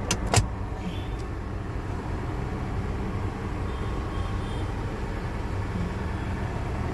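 Toyota 1GR 4.0-litre V6 idling steadily with a low rumble, just after new spark plugs and a replacement ignition coil have been fitted. Two sharp clicks come in the first half-second.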